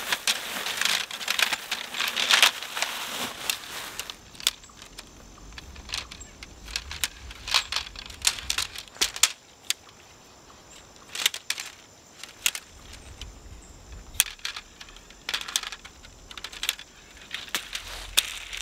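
Tent pole sections clinking and clicking as shock-corded poles are unfolded and snapped together: a dense run of clicks in the first few seconds, then scattered clicks.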